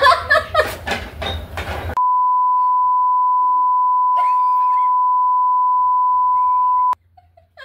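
Laughing voices, then about two seconds in a steady single-pitched censor bleep that lasts about five seconds, over otherwise muted audio, and cuts off abruptly with a click.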